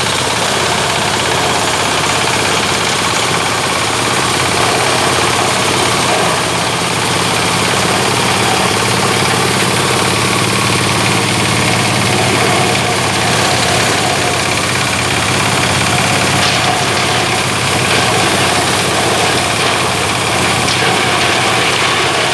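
Engine-driven organic-waste shredder (gibrig machine) running steadily, with a constant engine hum and machine vibration.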